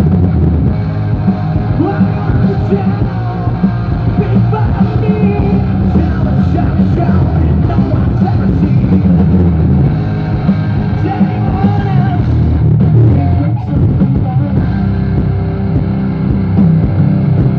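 Live rock band playing loud: electric guitars, bass guitar and drum kit, with a male singer's vocals over much of it.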